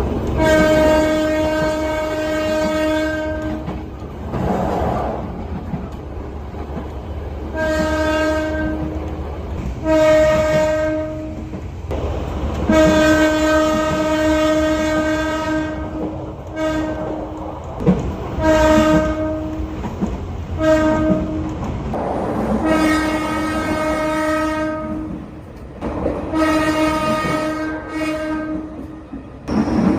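Locomotive air horn sounding Semboyan 35 signals, about a dozen blasts of one steady tone: several long ones, the longest about three seconds, mixed with short toots. Underneath runs the steady rumble of the train moving, with wheels clattering over the rail joints, heard from aboard the train.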